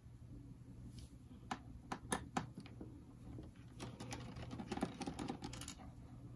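Precision screwdriver and small screws clicking and rattling against a laptop's plastic bottom panel as the panel screws are taken out. A few sharp clicks come about two seconds in, then a quicker run of small clicks and rattles from about four to nearly six seconds in.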